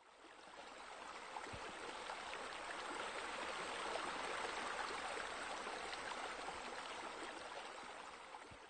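Water falling steadily and splashing into a pool, as from a sheer-descent water feature, fading in over the first few seconds and fading out near the end.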